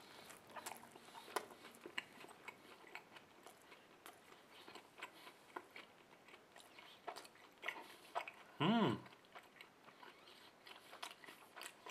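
A person biting into a soft burger and chewing it with the mouth close to the microphone: faint, irregular wet clicks and smacks. About nine seconds in comes a short hummed 'mm' from the eater.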